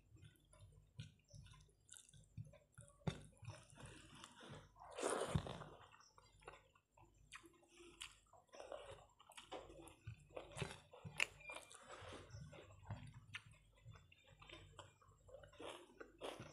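Close-up chewing and wet mouth sounds of someone eating rice and dal by hand, with small irregular clicks and squelches from the fingers mixing rice on the plate; one louder, longer noise comes about five seconds in.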